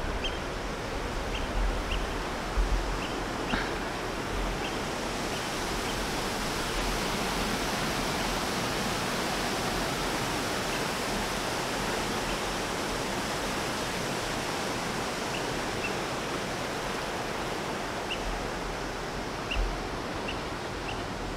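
Steady wash of sea surf breaking in a rocky cove, with a few low gusts of wind on the microphone.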